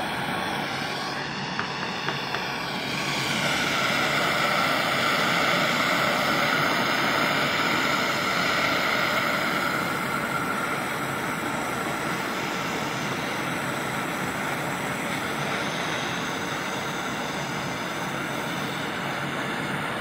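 MAPP gas hand torch burning with a steady hiss, its flame held on a hedge trimmer's exhaust pipe to burn the carbon out of it.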